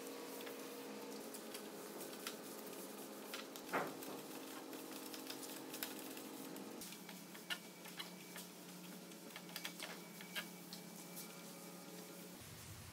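Cloth and gloved hand wiping a finish onto a wooden slab tabletop: quiet rubbing with scattered light ticks and one short falling squeak about four seconds in, over a steady low hum.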